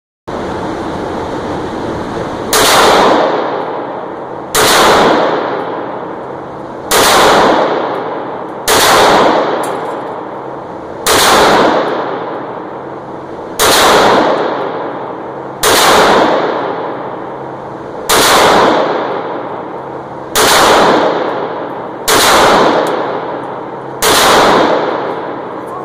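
FN Five-seveN pistol (5.7×28mm) firing eleven single shots about two seconds apart, each sharp report trailing off in a long echo off the walls of an indoor range.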